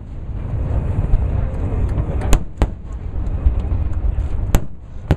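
Aerial fireworks shells bursting: two sharp bangs in quick succession about two and a half seconds in, and another near the end, over a continuous low rumble.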